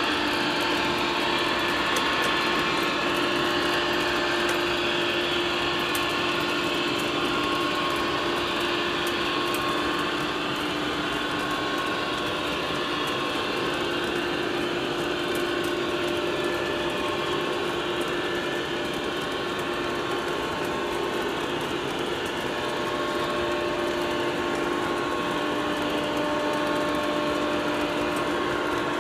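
O-scale model freight train of auto-rack cars rolling steadily along three-rail track: a continuous rattle and rumble of metal wheels on the rails, with a steady hum and faint scattered clicks.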